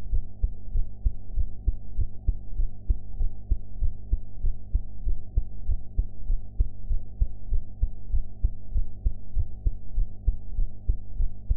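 A human heart beating in a steady, regular rhythm, picked up close to the chest, over a steady low hum.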